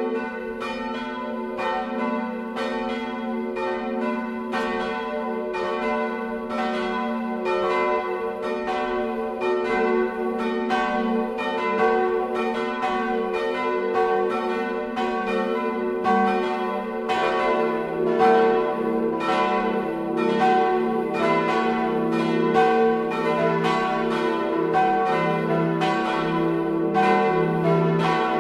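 Full peal of a four-bell ring of swinging bronze church bells (tuned e¹, f♯¹, a¹, b¹), their clappers striking in an unbroken, overlapping clangour. About two-thirds of the way through, a deeper bell joins in.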